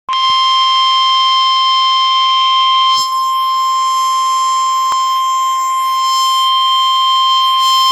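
NOAA Weather Radio 1050 Hz warning alarm tone: one loud, steady tone held without a break, the signal that a warning follows, here a flash flood warning.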